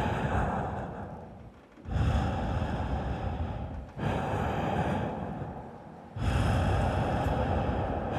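Four loud rushes of breath-like noise, one after another, each about two seconds long and starting abruptly.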